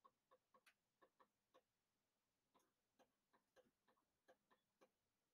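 Near silence with faint, irregular clicks and taps, a few a second with a short pause near the middle, from a stylus writing on a tablet.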